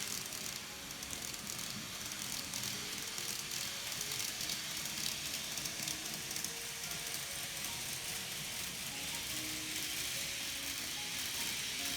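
Small electric drive of an N-gauge model train (TOMIX M-9 motor and gear train) running steadily: a continuous whirring hiss with faint gear chatter and brief squeaks.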